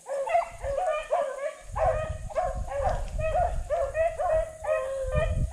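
A pack of hunting dogs baying as they run a track, several voices overlapping in a steady string of calls, about two to three a second. A low rumble comes in underneath about a second and a half in.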